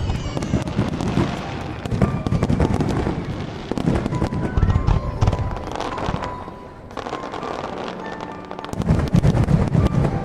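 Fireworks going off in a display: dense crackling and popping with low booms, easing off briefly past the middle and building again near the end.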